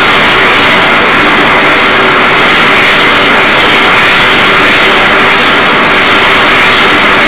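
Gas blowtorch burning with a loud, steady rushing hiss of flame.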